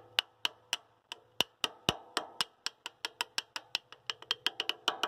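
Rapid light metal-on-metal hammer taps, about four to five a second and quickening slightly toward the end, knocking the steel pivot pin down through the holes of the Farmtrac 665 DTC's steering-cylinder axle mount.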